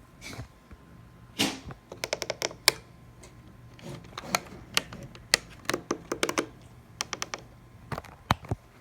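Typing on a keyboard: irregular runs of sharp key clicks with short pauses between them, over a faint steady low hum.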